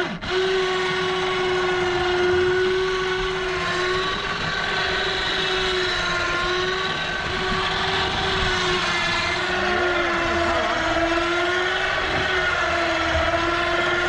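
Electric pot hauler on a boat's gunwale whining steadily as it winds in the rope on a spanner crab pot, its pitch wavering slightly as the load changes.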